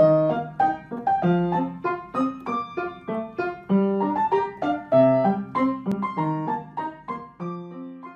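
Piano music: a lively tune of quick, separate notes, several a second.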